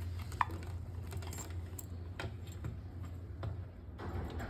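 Scattered light clicks and taps of plastic parts and connectors being handled and set in place, over a steady low hum.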